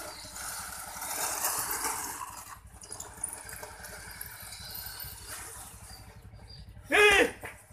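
Electric motor and gears of a toy RC car whirring as it is driven, louder about a second in, with a short loud whine that rises and falls near the end.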